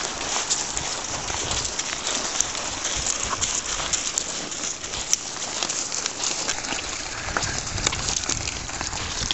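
Steady crunching and crackling of steps on a shell-and-pebble beach, from a pony's hooves and a person walking beside it.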